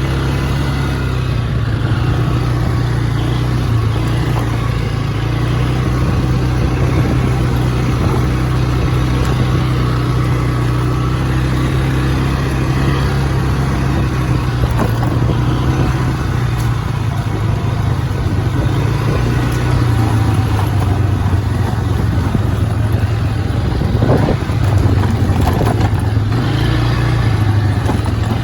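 Four-wheeler (ATV) engine running steadily while being ridden, its pitch shifting a little between about 20 and 26 seconds in.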